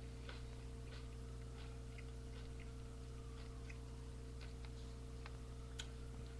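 A steady low electrical hum, with faint, irregular small clicks and ticks scattered through it.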